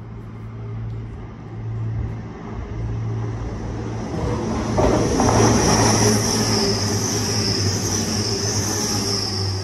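A train running, with a steady low engine or motor hum. A louder rushing, rolling noise comes in about five seconds in, with a high hiss over it.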